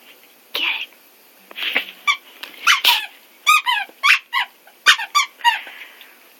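A rubber squeaky pet toy squeaked about a dozen times in quick, irregular succession, each squeak short and high-pitched, some bending up or down in pitch.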